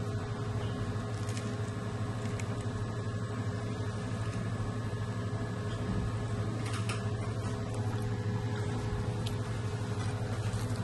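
Steady low mechanical hum of restaurant room tone, with a few thin steady tones above it and a few faint clicks.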